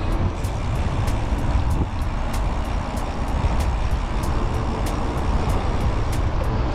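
Wind rushing over the microphone and road-bike tyres rolling on paved trail at riding speed: a steady low rumble, with light ticks about three times a second.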